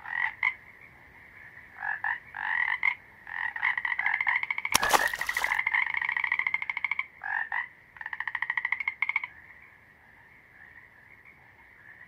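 Frogs calling: a series of rapid pulsed trills, several calls in bursts, over a steady faint high drone of chorus. A short, loud crackling noise cuts across them about five seconds in, and the calls die away for the last few seconds.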